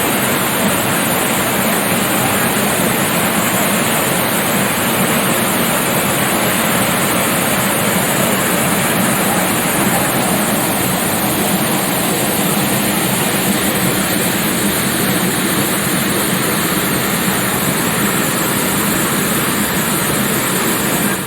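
A waterfall rushing at close range: a loud, steady roar of falling water.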